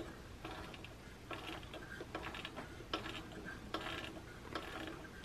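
Main tuning knob and dial drive of a Heathkit GR-64 shortwave receiver being turned by hand, giving faint irregular clicks and scrapes in small clusters. Under them is only a faint low hum: no station comes through, even with the volume turned all the way up.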